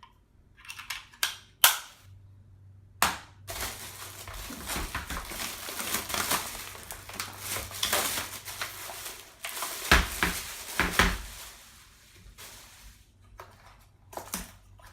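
Packaging being handled during unpacking: a few sharp clicks and knocks, then several seconds of crinkling and crackling plastic or packing material, then a couple of heavier knocks about ten seconds in.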